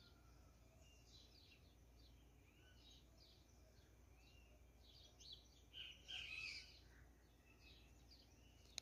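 Faint birdsong: many short high chirps and small arching whistled notes, with a louder burst of chirping about six seconds in. A single sharp click near the end.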